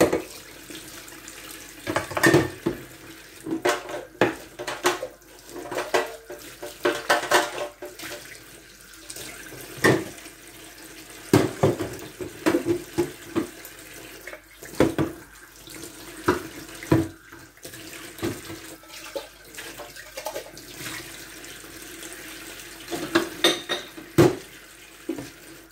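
Kitchen tap running into a stainless steel sink during hand dishwashing, with repeated knocks and clatters of a stainless saucepan and plates against the sink and the draining rack.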